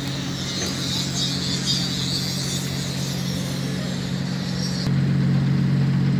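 An engine running steadily at idle, a constant low hum. A high hiss over it stops abruptly about five seconds in, and the hum gets louder.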